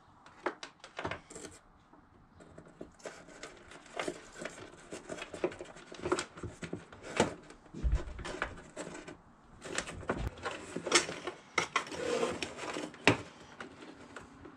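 Electrical wires being fed through a hole in a wooden RV cabinet and handled: irregular rustling, scraping and small clicks of wire and connectors against wood, with two dull knocks near the middle.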